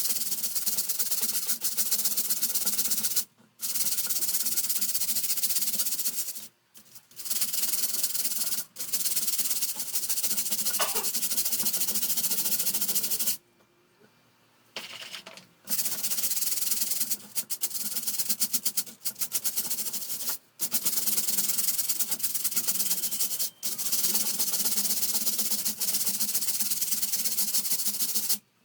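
Fast scrubbing strokes on a fan being cleaned, running in long stretches broken by short pauses, the longest about halfway through.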